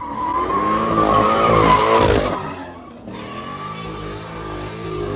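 Car tyres squealing in a burnout with the engine revving hard; the squeal and revving drop off a little over two seconds in, and the engine is heard revving again near the end.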